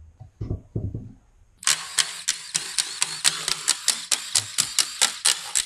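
Power ratchet spinning out the bolts of a 5R110W transmission oil pan: a steady hiss with rapid clicking, about six or seven clicks a second, starting about a second and a half in after a few light knocks.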